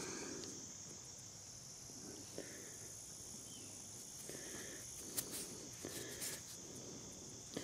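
Faint steady high insect chirring, with a few soft rustles and taps scattered through.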